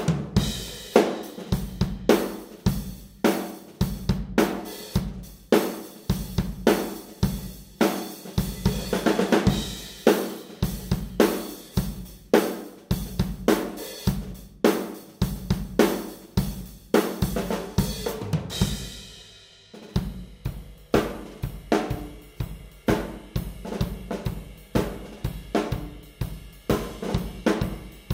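Acoustic drum kit played in a steady groove: kick drum, snare, hi-hat and cymbals, ringing in a large, ambient live room. About 18 seconds in, the playing stops briefly and lets the last hit die away, then comes back with a busier, faster beat.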